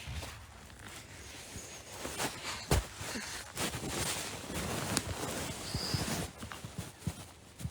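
Teeth grinding in sleep (sleep bruxism): rough scraping with scattered sharp clicks of teeth, heaviest in the middle few seconds.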